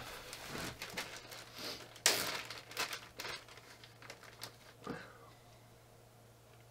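Clear plastic packaging crinkling and rustling as a small cinnamon roll is pulled out of it. The loudest rustle comes about two seconds in, and the handling dies away after about five seconds.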